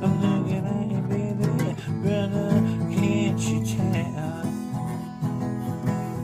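Music: acoustic guitar strumming steadily, with a wavering melody line over it near the middle, in a break between sung lines.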